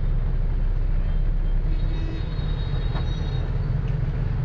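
Steady low engine and road rumble heard from inside a moving vehicle's cabin. A few faint high tones sound about halfway through.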